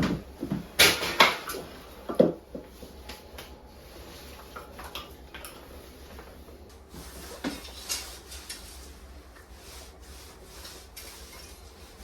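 Knocks and clatter of household objects being handled, with the loudest cluster in the first two seconds and a couple more knocks about eight seconds in.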